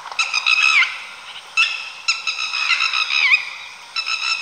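A series of high, honking animal calls, about four in a row. Each holds a steady pitch and then glides down at the end.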